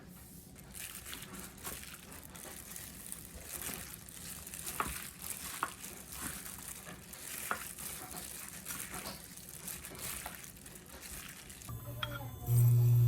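Kitchen cooking sounds: a steady sizzle-like hiss with scattered light clinks and rustles. Near the end a loud, steady low hum starts suddenly and becomes the loudest sound.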